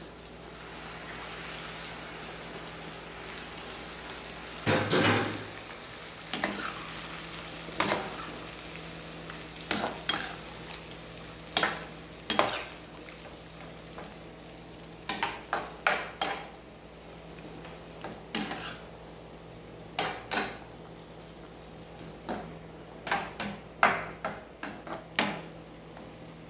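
Marinated chicken pieces in adobo marinade sizzling in a nonstick frying pan, with a spatula scraping and clacking against the pan as they are stirred. The sizzling dies down about halfway through.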